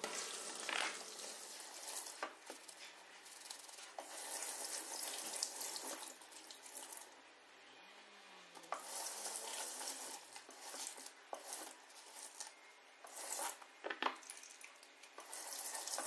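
Kitchen tap water running into the sink in spells while a cloth is rinsed and wrung out, with a few light knocks and the rubbing of hands wiping the sink.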